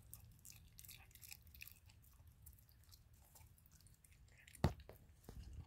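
German Shepherd puppy chewing raw chicken with bone taken from a hand: faint, wet chewing with small crunching clicks, and one sharper, louder crack about three-quarters of the way through.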